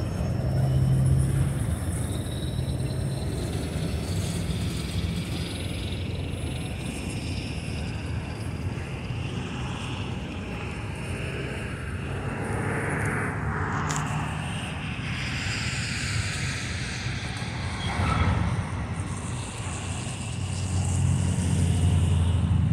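Freight train of covered grain hopper cars rolling along the track: a steady rumble and rattle of steel wheels on the rails.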